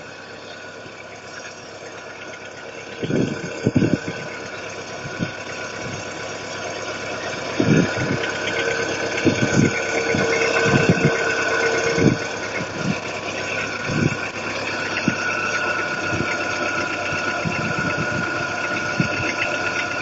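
Car engine idling with its hydraulic lifters knocking in the cylinder head. The tapping gets louder, with irregular sharper knocks from about three seconds in, and is very clearly heard.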